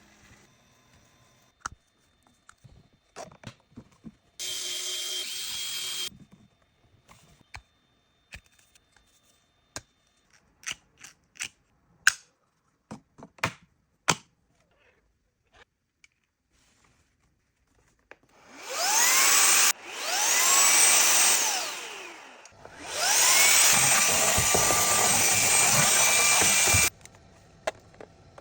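A cordless electric screwdriver whirs for about a second and a half, then ABS plastic parts click and knock as they are handled and fitted. Later a small vacuum cleaner motor is switched on several times. Each time it whines up in pitch, it spins down once, and its last run is about four seconds of steady whine.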